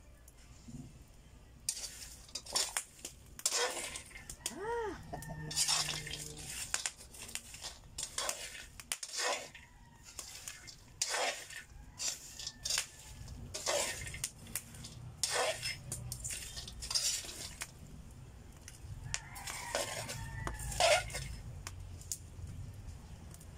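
Metal spatula scraping and knocking against a metal pan as cacao seeds are stirred while dry-roasting over a wood fire, in irregular strokes. A bird calls briefly about five seconds in and again near the end.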